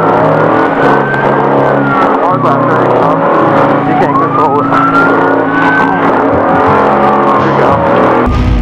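Off-road race trophy truck engine running hard, its pitch climbing and falling repeatedly as it revs through the course.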